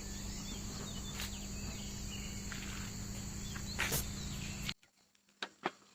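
Steady insect chorus, a continuous high-pitched trill over an even outdoor hiss, with one click near the middle. It cuts off abruptly near the end, leaving a much quieter stretch with a few faint clicks.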